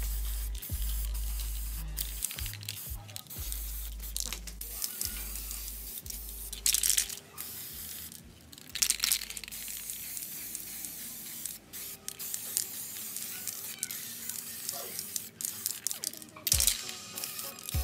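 Aerosol spray-paint can hissing in several short bursts as the water pump's parts are painted, over background music.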